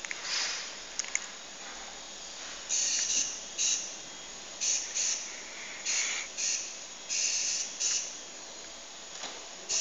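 Small colour-tracking robot's drive motors whirring in short stop-start bursts, about ten of them from about three seconds in, as it keeps correcting its heading, over a steady hiss.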